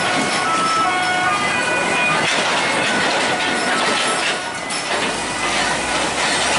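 Diesel tractor truck hauling a long flatbed semi-trailer rolling slowly across railway tracks: a steady rumble of engine and tyres, with background music playing over it.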